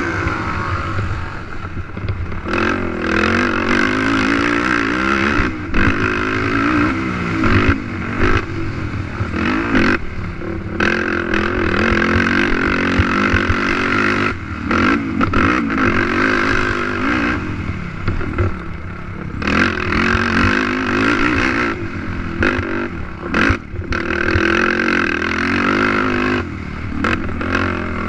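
Racing ATV engine revving hard and falling back again and again as the throttle is opened and shut, with scattered knocks and clatter from the machine over rough ground.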